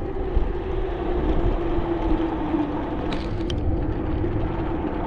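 Electric bike on the move: steady wind and road rumble with a constant hum, and a few faint ticks about three seconds in.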